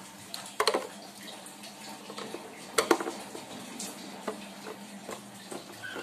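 A screwdriver backing out the screw on an electric water heater's cover: scattered small clicks and ticks, with two louder clicks, about half a second in and near three seconds in.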